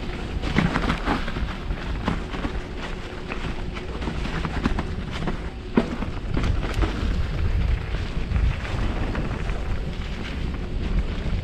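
Mountain bike riding downhill on a muddy trail, heard from an action camera on the rider: a steady rumble of wind buffeting the microphone and tyres on dirt, with a few sharp knocks and rattles from the bike, the loudest a little before six seconds in.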